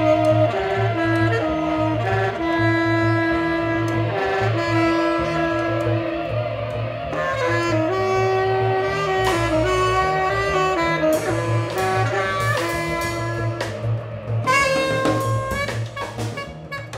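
Instrumental jazz: a horn melody over a pulsing bass line and drums, breaking into short, repeated chord stabs near the end.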